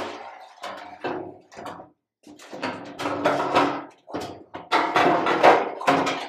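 Stamped sheet-steel replacement floor pan for a 1968 VW Beetle scraping and knocking against the car's body as it is shifted into position by hand: a run of short scrapes of up to a second each, some with a ringing tone.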